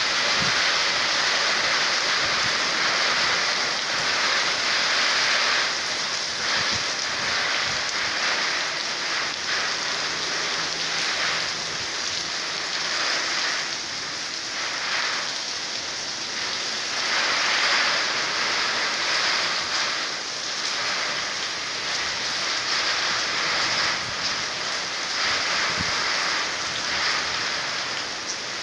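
Heavy squall-line downpour: a steady hiss of hard rain that swells and eases over several seconds as the gusts come and go.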